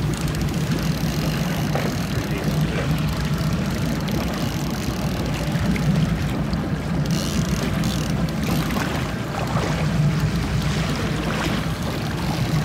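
Fishing boat's motor running steadily at trolling speed, an even low hum under a constant rush of wind and water.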